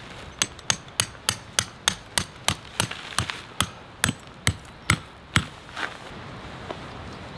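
A tent peg being hammered into gravel ground with a small hammer: about fifteen sharp strikes at roughly three a second, slowing slightly toward the end, then one lighter tap.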